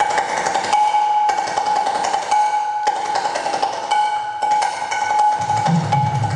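Shreekhol and tabla drumming in a fast run of strokes over a steady high ringing note. About five seconds in, deep bass drum tones join.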